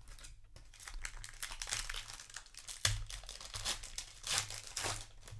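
Crinkling of a Magic: The Gathering booster pack's plastic wrapper being handled, in irregular crackles, with one sharper knock about three seconds in.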